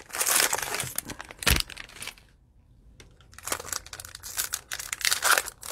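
Plastic cello-pack wrapper of trading cards crinkling as it is opened and the stack of cards slid out. There are crinkling bursts for about two seconds, a short pause, then more crinkling.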